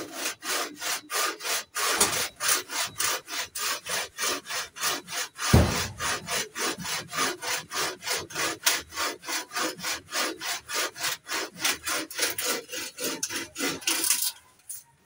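Hand saw cutting through a eucalyptus pole in quick, even back-and-forth strokes, about three a second, with one knock about five and a half seconds in; the sawing stops near the end.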